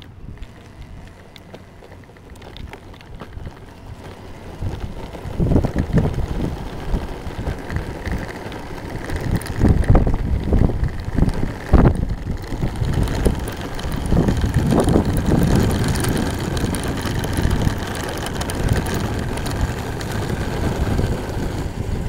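An electric skateboard riding on rough asphalt, its uncovered belt-drive motor assembly giving the rattle the rider is trying to document. The wheel and drive noise, with scattered knocks, grows louder from about four seconds in as the board picks up speed. There is some wind on the microphone.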